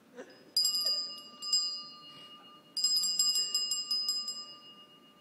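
A small bell struck once, again about a second later, then rung rapidly for under a second near the middle, its high metallic tone ringing on and fading after each run.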